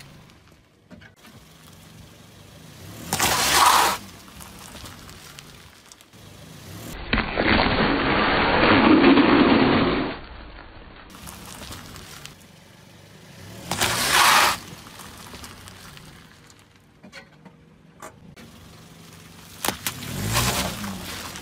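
A car tyre rolling over and crushing objects on concrete, in four separate loud crunches: a short one about three seconds in, a longer one lasting about three seconds from around seven seconds, and short ones near fourteen and twenty seconds.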